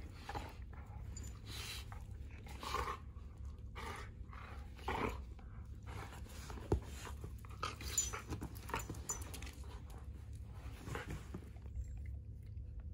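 A bulldog and a vizsla play-wrestling, breathing hard in a series of short noisy breaths, with a single sharp knock about midway.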